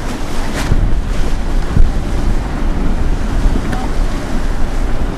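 Strong wind buffeting the microphone over waves and rushing water around a racing sailboat, with a few brief splashes about half a second in.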